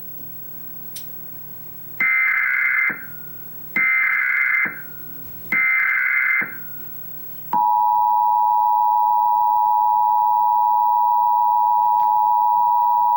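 Emergency Alert System data header: three loud bursts of warbling data tones, each about a second long and just under a second apart. About seven and a half seconds in, the EAS two-tone attention signal starts, a steady loud dual tone that holds without change. Together they mark the start of an EAS alert, here the nationwide test.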